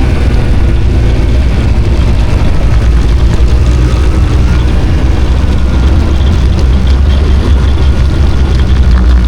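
Snowmobile engine running steadily at speed while riding, a loud, even rumble with a faint whine that drifts slightly in pitch.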